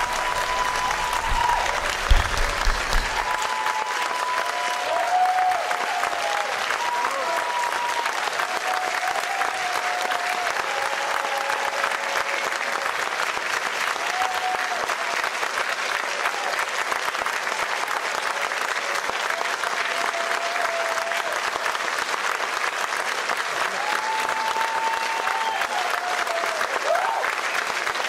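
Theatre audience applauding loudly and steadily, with a few voices calling out above the clapping.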